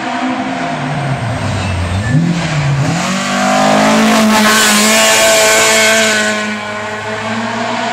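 Mk2 Ford Escort rally car coming through a corner on a gravel stage. The engine note drops as it comes off the throttle for the bend and blips once, then climbs hard under acceleration. It is loudest past the midpoint, with a hiss of flung gravel as it goes by, and eases away near the end.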